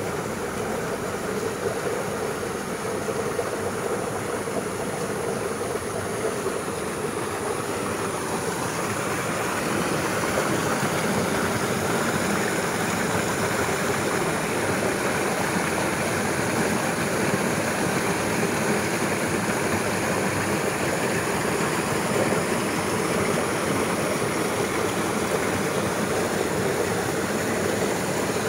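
Steady rushing of river water, growing a little louder about ten seconds in.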